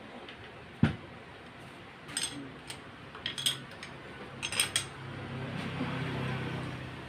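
Metal hand tools knocking and clinking against a motorcycle engine: one sharp knock about a second in, then a scatter of short metallic clinks. A low steady hum comes up near the end.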